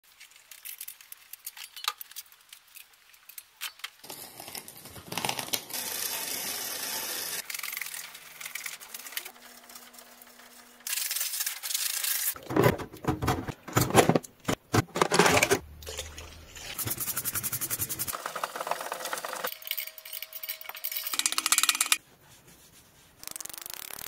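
A quick series of short, abruptly cut mechanical sounds: small metal parts clicking, ticking and rattling, with stretches of steady hiss between them.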